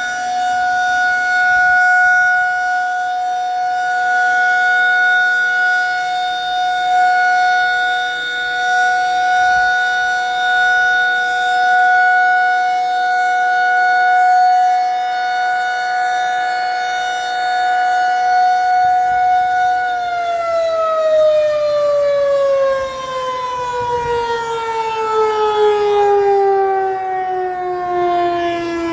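Federal Signal 2001 outdoor warning siren sounding its steady alert tone for a siren test, its loudness swelling and easing every few seconds. About two-thirds of the way through, the alert ends and the siren winds down, its pitch falling steadily.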